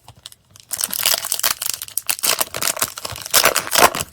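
Foil trading-card booster pack wrapper crinkling and tearing as it is ripped open by hand. It is a dense crackle that starts about a second in and keeps going.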